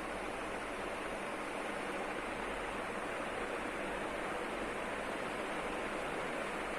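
National F-560A1 ceiling fan running: a steady rush of air.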